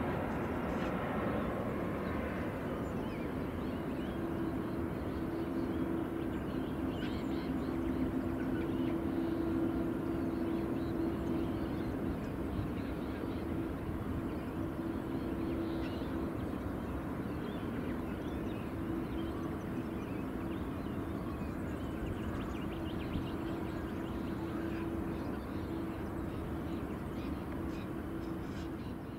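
Boeing 737-800's CFM56 jet engines heard from afar as the airliner lands and rolls out on the runway: a steady rumble with a low, even drone.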